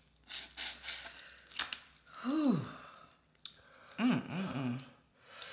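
Wordless vocal reactions while eating very spicy seafood boil: breathy sighs, then a short moan whose pitch rises and falls about two seconds in, and more short moans a little before the end.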